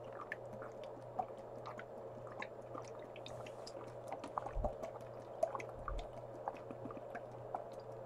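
A person drinking water from a plastic bottle: soft swallows and many small wet mouth-and-liquid clicks, with two deeper gulps past the middle, over a faint steady hum.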